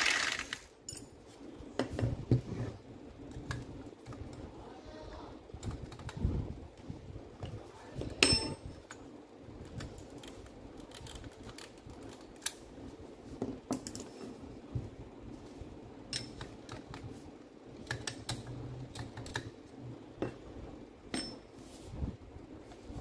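Handling noise from a rotary hammer drill being turned over and worked at its chuck: scattered clicks, taps and knocks of plastic and metal parts, with one louder metallic clink about eight seconds in. It opens with the tail of a short burst from the drill.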